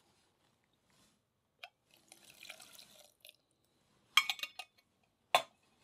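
Lemon juice dripping and trickling from a hand-held metal lemon squeezer into a glass mixing bowl. A quick run of sharp clinks comes just after four seconds in and one single sharp clink near the end, the loudest sounds, as the metal squeezer and whisk are handled against the bowl.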